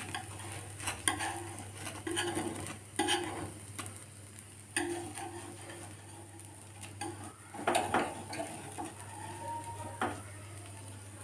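Knife scraping and tapping along the edge of a crisp dosa on a non-stick tawa, loosening it from the pan in short irregular strokes, over a light sizzle.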